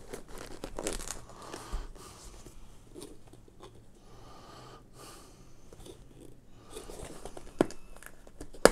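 Cardboard product box being handled and turned over in the hands: faint rustling and scraping of the packaging, with two sharp clicks near the end.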